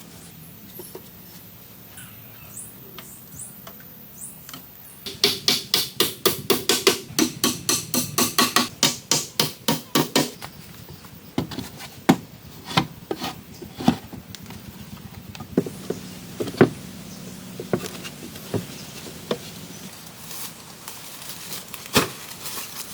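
A tool striking wood: a fast, even run of blows at about four a second for some five seconds, then slower single blows with pauses between them.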